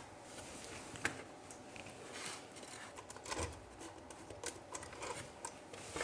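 Faint, scattered clicks and taps of hands handling a plastic electrical switch board and doorbell housing, over low room hiss.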